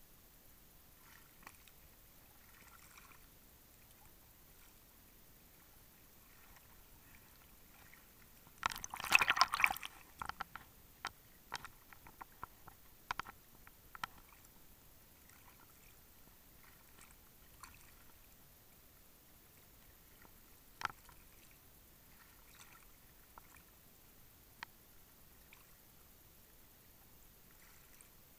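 Choppy surface water splashing and lapping against a camera held at the waterline, mostly faint and muffled. A loud burst of splashing comes about nine seconds in, followed by scattered sharp splashes and taps.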